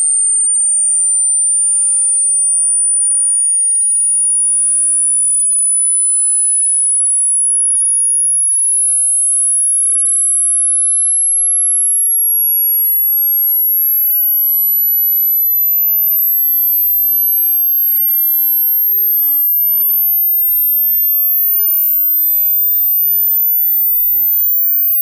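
A pure sine test tone from a hearing test, very high and thin. It climbs steadily in pitch in small steps about once a second toward the upper limit of human hearing.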